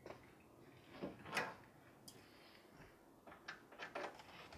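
Faint scattered clicks, taps and short scrapes of hands unfastening and handling the front panel of a wooden display cabinet, with a few more clicks near the end.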